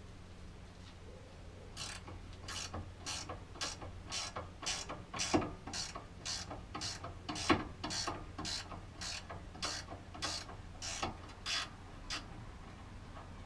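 Hand ratchet wrench being worked back and forth on a nut, a steady run of sharp clicks a bit more than two a second. The clicking starts about two seconds in and stops about a second before the end.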